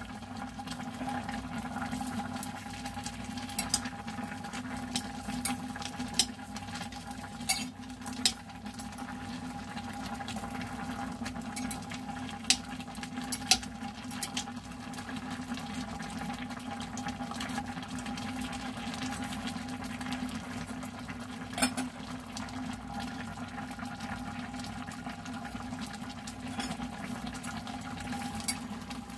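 Instant ramen and dumplings at a rolling boil in an amber glass saucepan on an electric cooktop: steady bubbling over a constant low hum. A few sharp clicks come here and there as metal chopsticks knock against the glass pot while stirring the noodles.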